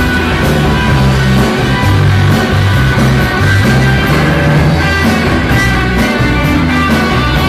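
A rock band playing live, an electric guitar over steadily moving low bass notes and regular cymbal hits.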